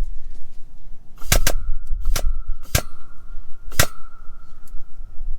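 Hand-cranked come-along ratchet under heavy load giving five sharp metallic clicks at uneven intervals, two close together a little over a second in, with a faint steady ringing tone behind them.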